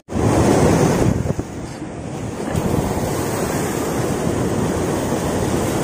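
Sea surf surging and breaking against rocks, with wind buffeting the microphone. The wash is loudest for the first second or so, then settles into a steady rush of water.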